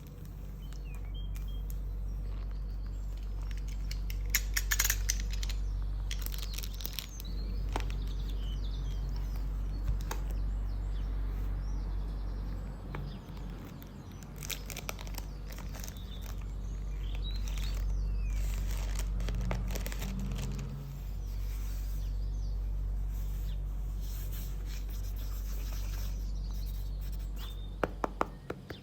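Packaging being handled and opened by hand, with intermittent crinkling, tearing and sharp clicks, over a steady low hum. Birds chirp now and then in the background.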